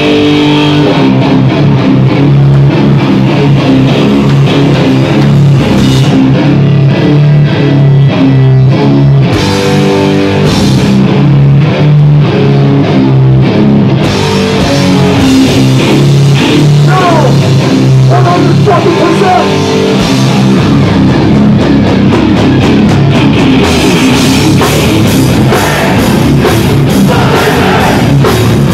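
Live hardcore band playing loud: heavy distorted electric guitars chugging a riff over drums. The drums and cymbals fill in more fully from about halfway through.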